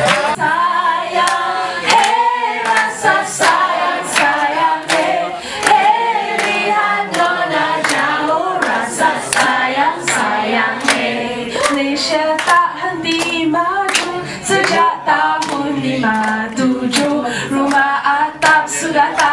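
A group of people singing a song together, amplified through a microphone, with an audience clapping along at a steady beat.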